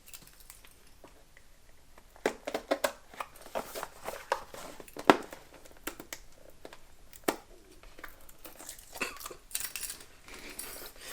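Packaging being opened by hand: tape being picked at and pulled, with cardboard and plastic wrap crinkling. Irregular rustles and sharp clicks and knocks run throughout, loudest about halfway through.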